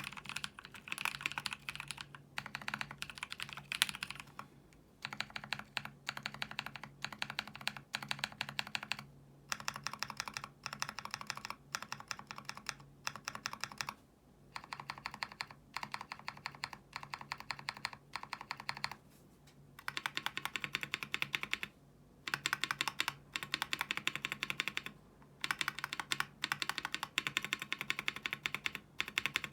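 Typing on an E8.5 custom mechanical keyboard with lubed YOK Holy Panda tactile switches on a polycarbonate plate, under GMK keycaps. There are fast runs of keystrokes broken by short pauses every few seconds.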